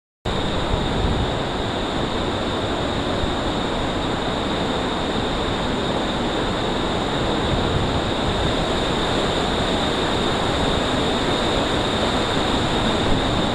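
Steady rush of a mountain torrent pouring down a waterfall inside a narrow rock gorge, cutting in abruptly just after the start.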